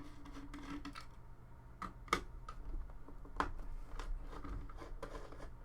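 A few sharp clicks and light taps of small metal parts: a Phillips screwdriver working the screws out of a motherboard's AMD CPU retention bracket.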